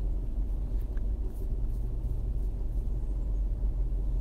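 Steady low rumble of background noise in a voice recording, during a pause in speech.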